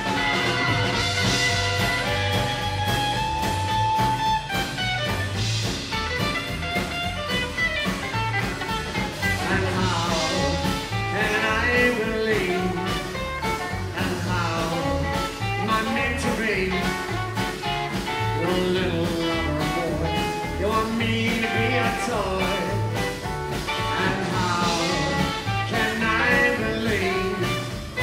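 A live rockabilly band playing a song, with acoustic guitar over a drum kit keeping a steady beat.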